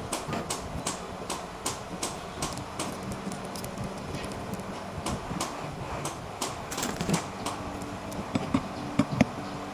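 Irregular light metallic clicks and taps of hand tools and small parts being handled, a few a second, over a steady low hum. The sharpest knocks come in the second half.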